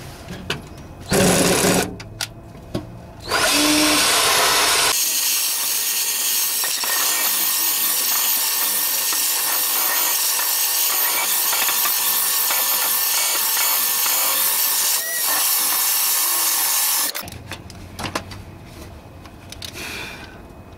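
Electric drill with a sanding attachment scouring a rusty steel truck frame: two short bursts, then one long continuous run of about twelve seconds that cuts off near the end.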